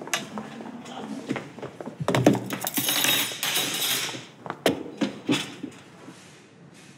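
Stainless steel cafeteria trays and spoons clattering and clinking against a table, with sharp clicks throughout and a busier stretch of clatter in the middle as trays are set down.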